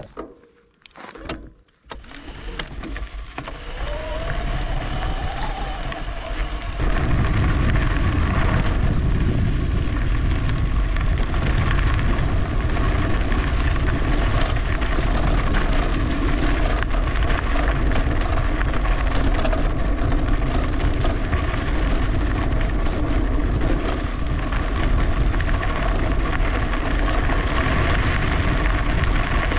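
Wind rushing over the microphone and rolling noise while riding an e-bike. It starts near silent, builds up over the first few seconds, then holds a loud, steady rumble from about seven seconds in.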